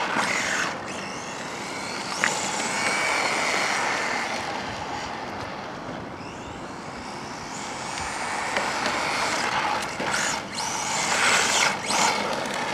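Turnigy 1/16 brushless RC rally car driving, its brushless motor's whine rising and falling in pitch again and again as it accelerates and slows, with a sharp click about two seconds in.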